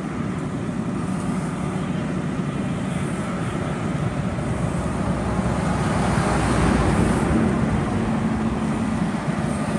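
Steady rumbling noise of a fully burning car with fire engines running at the scene. It swells about six seconds in, and a steady low hum comes in from about seven seconds on.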